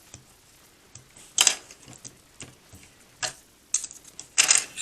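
Small hard plastic model-kit parts clicking and clacking as they are handled: a handful of sharp clicks, the loudest about a second and a half in and a quick cluster near the end.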